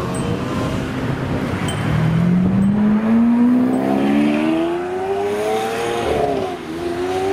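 Lamborghini Aventador SV's V12 accelerating away. After a low rumble, the engine note climbs steadily for about four seconds, drops briefly at an upshift, then climbs again.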